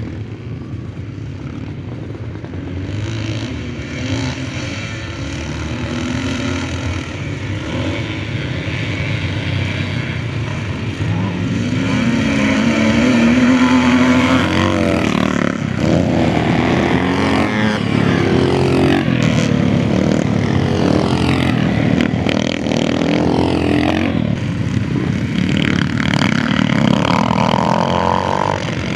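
Classic motocross bikes racing, their engines revving up and down in pitch and overlapping. The engines grow louder over the first twelve seconds or so as they come closer, then stay loud.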